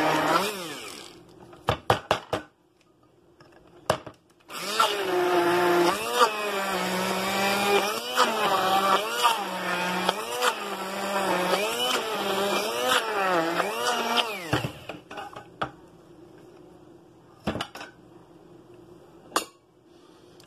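Electric blender puréeing a chicken mixture, its motor pitch dipping and rising again and again as it bogs down and frees up in the meat. It stops about a second in and starts again about four seconds in. It runs for about ten seconds, then stops, and a few sharp clicks follow.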